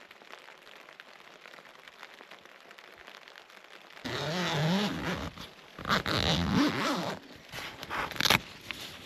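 Tent door zip being pulled open in about three long strokes, over rain pattering on the tent.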